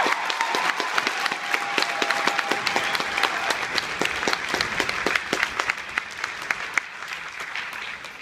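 Theatre audience applauding after a choir number, the clapping dense at first and then thinning out and fading toward the end.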